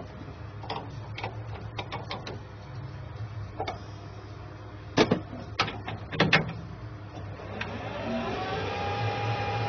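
Metal clanks and clicks of tools and levers being handled on a metal lathe, with a few sharp knocks in the middle. Near the end the lathe's motor and gearbox start up, rising to a steady whine and hum as the spindle runs.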